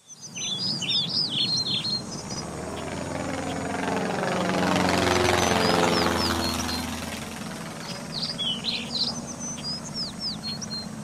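A light single-engine propeller airplane flying low overhead: the engine drone swells to a peak about halfway through and then fades, its pitch dropping as it passes. Small birds chirp in short, quick notes at the start and again near the end.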